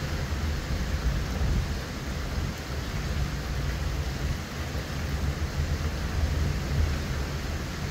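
Hurricane rain and wind: a steady hiss of heavy rain over a constant, unsettled low rumble.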